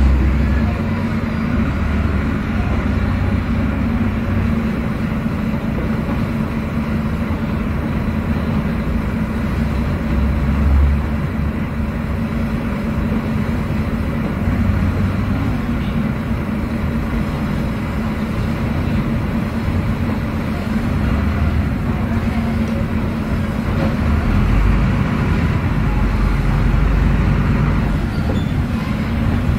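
Volvo B9SALF articulated bus heard from inside the cabin while driving: its Volvo D9B six-cylinder diesel engine, coupled to a Voith automatic gearbox, runs with a steady drone and a deep rumble that shifts with the load.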